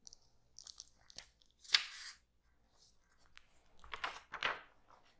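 Paper being handled: soft rustling and crinkling of sheets in a few short spells, the strongest about two seconds in and another near the four-second mark, with a couple of light clicks.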